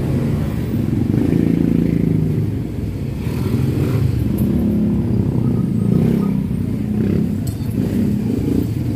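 Motorcycle engine running, its pitch rising and falling, with a few light clicks.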